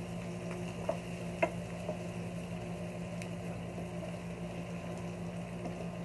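Garlic and onion sautéing gently in oil and margarine in a stainless steel frying pan, stirred with a spatula, with a couple of light spatula taps on the pan about one and one and a half seconds in. A steady low hum runs underneath.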